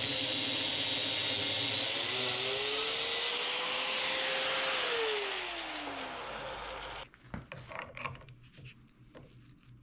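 Electric angle grinder with a cutoff wheel cutting into the steel shaft of a gear held in a vise. Then, freed of load, its whine rises; about five seconds in, it is switched off and winds down over a couple of seconds. After that come a few light clicks and knocks as the part is handled with locking pliers.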